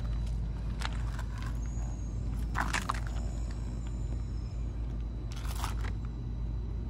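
Footsteps crunching on loose gravel, with two louder crunches about two and a half and five and a half seconds in, over a steady low rumble.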